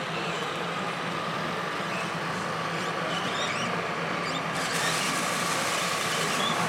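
Radio-controlled model Volvo FH16 750 logging truck driving, its sound module giving a steady diesel-engine hum over the even noise of a busy hall; the sound brightens a little about halfway through.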